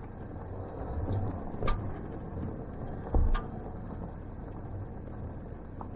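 Vehicle driving slowly on a dirt road, heard from inside the cabin: a steady low rumble of engine and tyres, with a sharp click a little under two seconds in and a heavy thump just after three seconds as the vehicle jolts over the rough surface.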